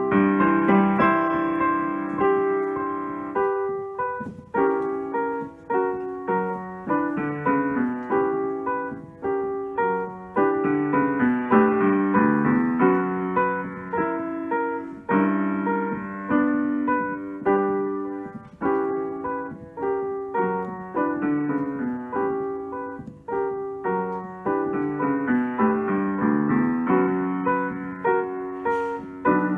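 Solo piano piece played on a digital keyboard with a piano voice: chords and melody notes that die away after each strike, with flowing runs of notes stepping down and back up.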